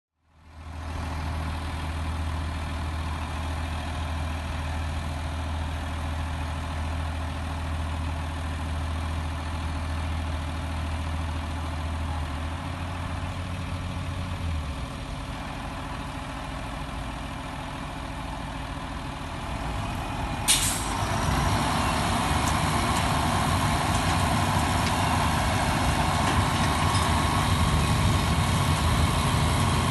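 Engines running steadily as a T-WINCH cable winch pulls a tractor and baler. About two-thirds of the way through there is one sharp clank, and after it the engine sound grows louder and busier.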